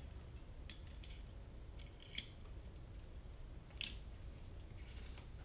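Soldering iron and small tools worked over a little circuit board as its pads are tinned: a few faint, short scratchy ticks and scrapes scattered through, over a low steady hum.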